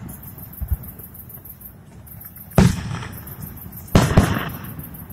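Fireworks display with aerial shells bursting. Two soft thuds come in the first second, then a loud bang about two and a half seconds in and two more bangs close together near four seconds, each trailing off in a rolling rumble.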